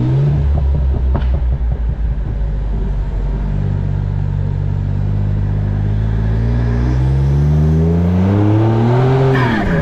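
Turbocharged Raptor-swapped Ford Transit van engine running hard, uneven and choppy at first with a sharp pop about a second in. Then the revs climb steadily for about five seconds and drop quickly near the end.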